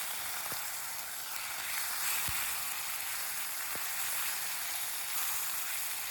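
Food sizzling in a pan over a campfire: a steady frying hiss with a few sharp pops scattered through it.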